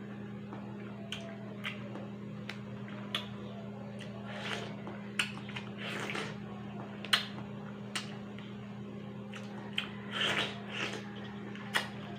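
Close mouth sounds of eating ripe orange-fleshed melon: wet bites, chewing and slurping, with sharp clicks scattered throughout, over a steady low hum.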